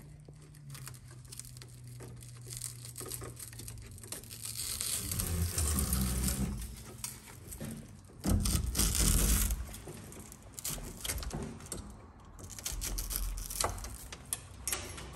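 A knife being pulled through the urethane adhesive bead that holds a windshield in a skid steer's cab frame, cutting in irregular scraping, tearing strokes, with two louder stretches of cutting in the middle and scattered clicks of the tool against the metal frame.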